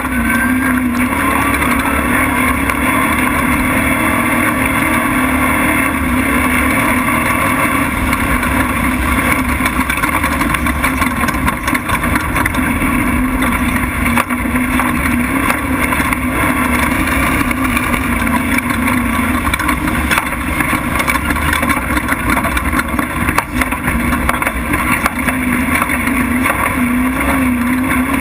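Race truck engine running hard at high, steady revs, a loud continuous drone mixed with the rush of wind and the rumble of the truck on rough dirt. The engine note wavers a little near the end as the revs shift slightly.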